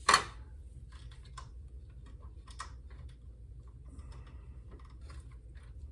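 Light, scattered clicks and taps of hand tools and parts being handled, with one sharper click right at the start; the treadmill itself is not running.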